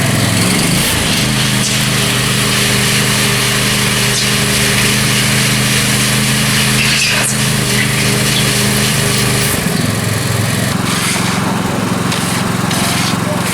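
A machine's engine running steadily close by. Its note changes about a second in and changes back about nine and a half seconds in.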